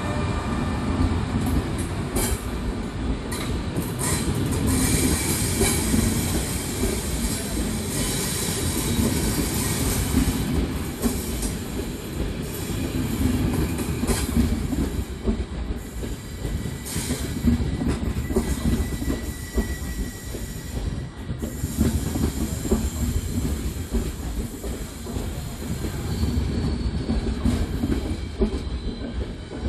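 Electric-hauled passenger train rolling slowly past: an FS E402B locomotive followed by Thello coaches, with a steady wheel-and-rail rumble, wheels clicking over rail joints, and now and then a thin wheel squeal.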